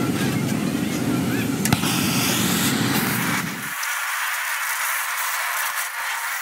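A low rumble with a single sharp click, cut off suddenly about four seconds in. After the cut comes the steady hiss of a gas torch flame heating rusty steel rake teeth.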